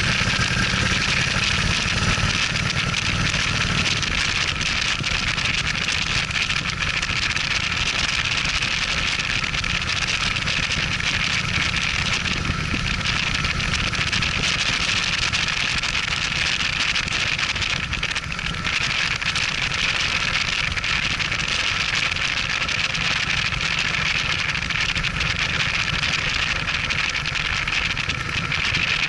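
Cruiser motorcycle engine running steadily at cruising speed, with wind and road noise rushing over the microphone.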